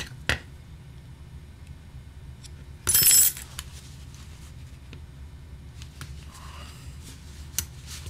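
Handling sounds at a repair bench: a few light clicks, and about three seconds in a brief, loud metallic clatter from the oboe's metal keywork and small tools being handled. A low steady hum runs underneath.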